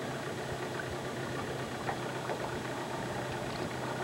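Boat's outboard motor idling, a low, even hum with no change in pitch.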